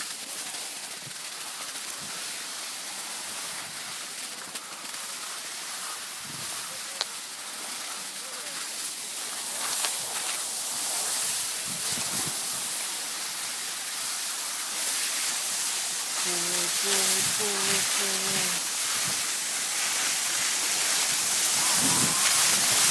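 Skis hissing and scraping over snow, with wind rushing on the phone's microphone, growing steadily louder as the descent goes on.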